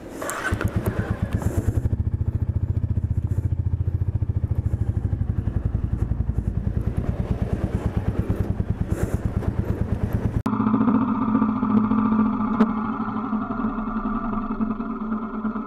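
Motorcycle engine running with an even, rapid low thumping pulse while riding slowly. About ten seconds in, the sound cuts abruptly to a steadier, smoother engine drone.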